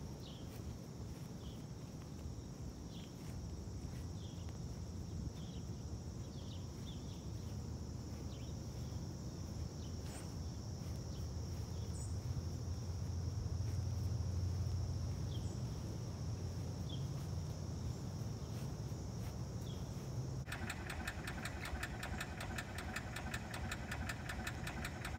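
Outdoor summer-yard ambience: a steady high-pitched insect drone with scattered short bird chirps over a low rumble that grows louder around the middle. About twenty seconds in, fast, evenly pulsing music begins.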